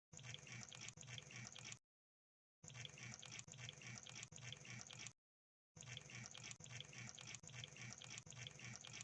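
Crab sound effect: faint, rapid fine clicking and crackling, played in three stretches of about two to three seconds, each cut off into dead silence.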